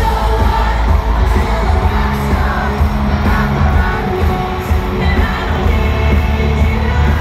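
Live pop music with a singer and band over a stadium sound system, heard from within the concert crowd, loud and steady with heavy bass.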